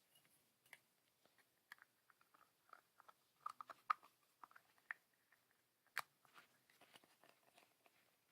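Faint clicks and taps of small plastic figure pieces being handled and fitted together, with one sharper snap about six seconds in.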